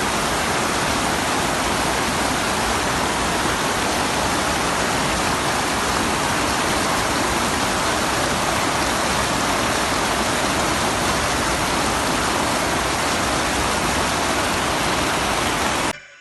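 Rushing water of a waterfall and strong river current, a loud, steady rush close to the microphone. It cuts off abruptly near the end.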